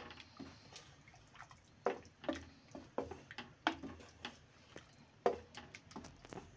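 Thick tomato gravy bubbling in an open pressure cooker on a low flame as it cooks down, with bubbles bursting in irregular plopping pops, a couple a second.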